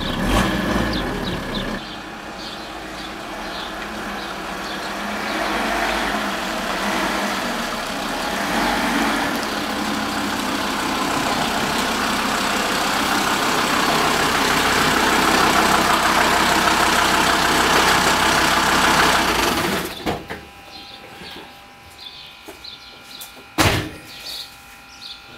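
Audi sedan driving, a steady run of engine and road noise that cuts off abruptly about twenty seconds in. Near the end a car door shuts with a single sharp bang.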